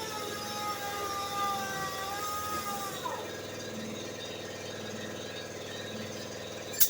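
Power grinder's high whine winding down and dying away about three seconds in, over a steady mechanical hum; one sharp click near the end.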